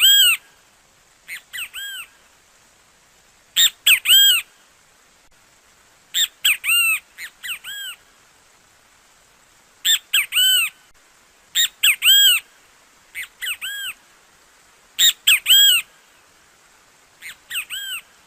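Great kiskadee (bem-te-vi) calling: short phrases of two or three loud, arching notes, repeated every second or two, some phrases fainter than others.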